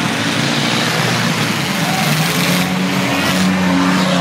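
Engines of a pack of junk race cars running together under throttle, a loud, steady mix of several engine tones over heavy noise.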